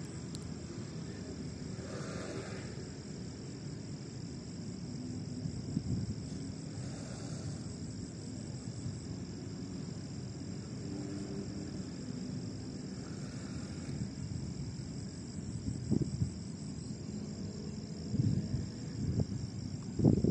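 Crickets trilling steadily at two high pitches over a low rumbling background, with a few soft knocks near the end.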